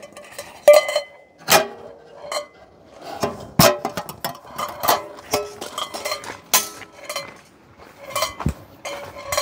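Dishes and utensils clinking and knocking irregularly as pork cutlets are dipped and breaded in bowls.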